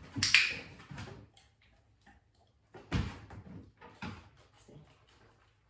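A sharp rustling clack just after the start, then a dull thump about three seconds in and a few lighter knocks. These are handling sounds as a dog shifts and sits down on a plastic training platform while its handler moves beside it.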